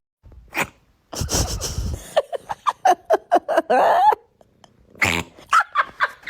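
Domestic cat making a rapid run of short, quack-like calls, several a second, in two bouts, with a short noisy huff just before the first bout.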